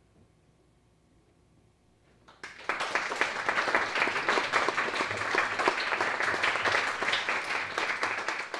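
Near silence for about two seconds, then audience applause starts suddenly: many people clapping densely and unevenly.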